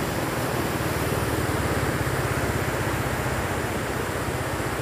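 Steady rushing of a swollen, muddy river in flood, with a low, fast, even throb running beneath it.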